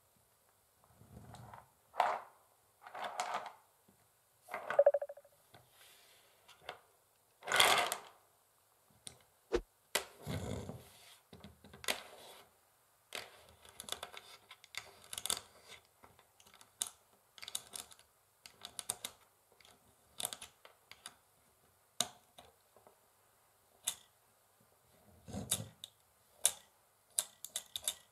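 Long fingernails tapping on a wooden chessboard in irregular clicks, with a few longer scratching strokes across the wood.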